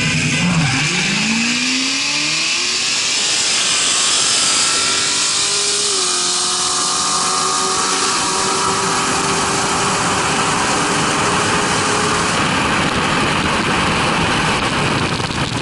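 Cars launching hard from a stop, engine pitch rising steeply in the first couple of seconds and again a few seconds later through the gears. It settles into a steady engine drone under heavy wind and road noise at speed.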